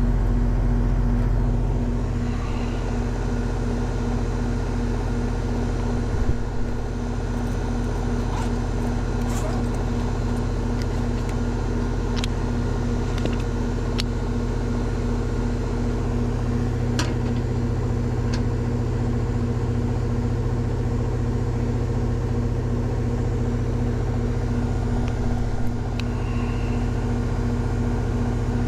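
Goodman heat pump outdoor unit running in heating mode: a loud, steady hum with a strong, constant tone from the compressor and fan. A few light clicks and taps sound over it.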